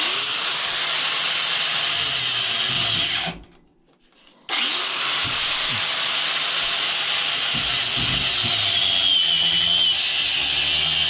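Bladed power saw running while cutting through a piece of scrap, stopping for about a second after three seconds and then starting again. Its high whine drops lower about two-thirds of the way through as the blade bites, and the blade is dull enough that a blade change may be needed.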